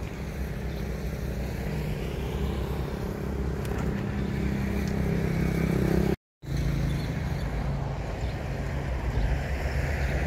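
Steady rumble of passing road traffic, with slow sweeping changes in tone as vehicles go by. The sound cuts out completely for a moment about six seconds in.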